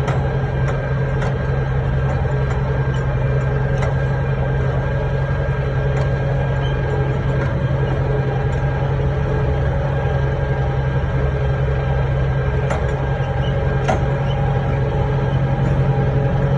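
Tractor engine running steadily while pulling a mulch-lifting implement along the field rows, with a few sharp clicks.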